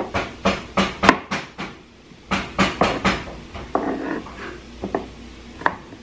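Kitchen knife chopping shallots on a wooden cutting board: quick sharp knocks, about four a second, a short pause about two seconds in, then another run, slowing to scattered knocks toward the end.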